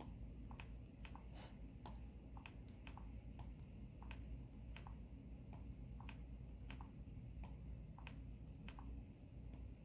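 Faint, irregular clicks and taps, about two a second, from handling two smartphones as they are locked and unlocked by their fingerprint scanners, over a low steady hum.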